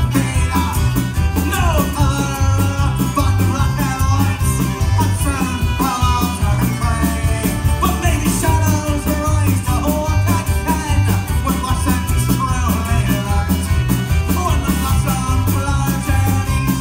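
Live band playing an instrumental passage: fiddle and accordion carry a sliding melody over acoustic guitar and drums with a steady beat.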